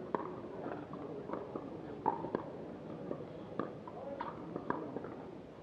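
Pickleball rally: paddles popping against a plastic ball in an irregular run of sharp hits, about one every half second to second.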